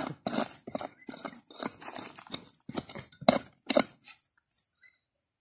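A short-handled hand pick chopping and scraping into dry, stony soil, with quick repeated strikes about three a second that stop about four seconds in.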